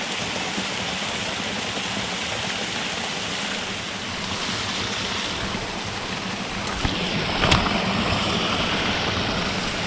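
Small mountain creek tumbling over a little waterfall: a steady rush of running water. A couple of brief knocks are heard about seven seconds in.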